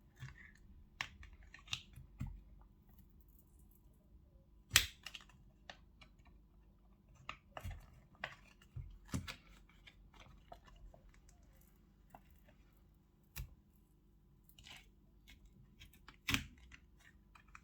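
Scattered small clicks, taps and short scrapes of repair tools working against a phone's glued panel as the adhesive is cut, the sharpest click about five seconds in, over a faint steady hum.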